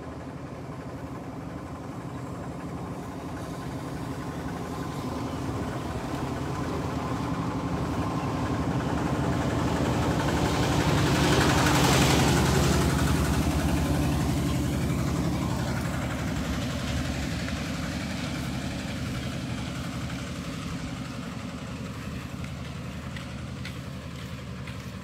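A small truck's engine running at a steady pace as the truck comes up and drives past close by, loudest about halfway through, then fading as it moves off down the dirt road.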